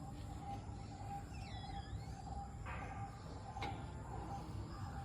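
Faint background noise: a low steady rumble with a brief faint bird chirp about one and a half seconds in and two light clicks.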